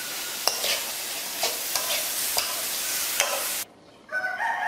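Shrimp sizzling in oil in a metal wok, with repeated scrapes of a spatula as they are stirred. The sizzle cuts off suddenly about three and a half seconds in, and near the end a rooster starts crowing.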